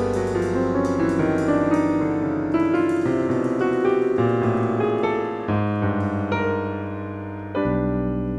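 Jazz piano playing quick runs and chords, with a new, low, full chord struck near the end and left ringing.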